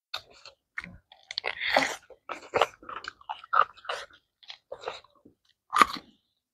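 Close-miked chewing of pork with rice and kholar beans: irregular bites, crunches and mouth smacks, with the loudest crunch near the end.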